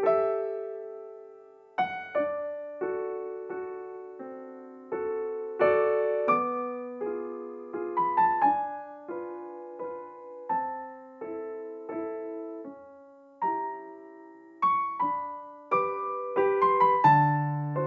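Gentle solo piano background music: a slow melody of single struck notes and chords, each ringing and fading away.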